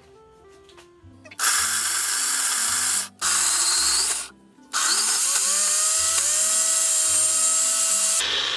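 Nutri Blitzer personal blender run by pressing the cup down, in three bursts: two short ones, then a longer one of about three and a half seconds. In the long burst the motor whine rises as it spins up and then holds steady, as it grinds dog food, carrot and water to a mash.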